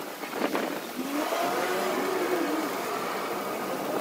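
Stick-welding arc burning on a steel plate from a long electrode, with a steady crackling hiss and frequent small pops. A faint tone wanders up and down in pitch beneath it.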